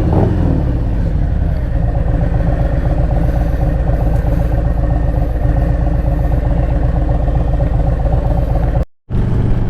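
Harley-Davidson Road Glide's V-twin engine running steadily as the motorcycle rides along. The sound cuts out completely for a moment near the end.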